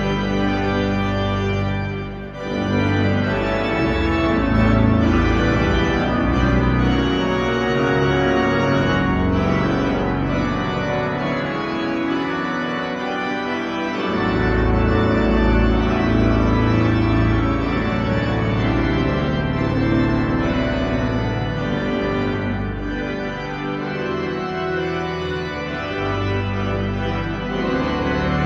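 Large pipe organ, the Hazel Wright Organ, playing a stately postlude in full, sustained chords over deep pedal bass notes. The bass drops out briefly near the middle and comes back strongly.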